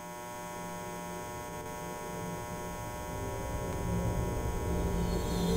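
Fluorescent tube light humming and buzzing: a steady electrical drone with many overtones, fading in. A low, dark rumble swells in underneath from about halfway through.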